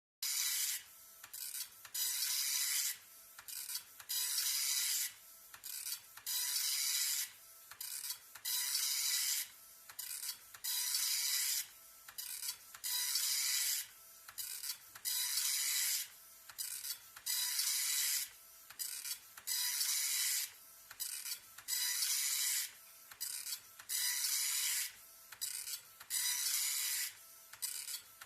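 Epson LX-300 9-pin dot-matrix printer printing: the print head rasps across the page in high-pitched passes of about a second each, repeating roughly every two seconds, with shorter bursts and brief pauses between.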